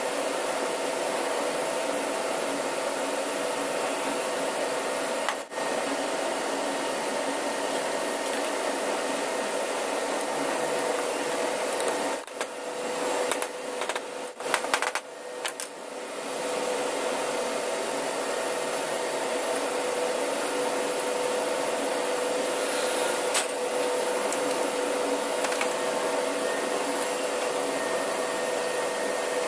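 Steady hum and hiss of running machinery and ventilation, with a constant mid-pitched whine. It drops out briefly about five seconds in and several times around the middle, and a single sharp click comes about three quarters of the way through.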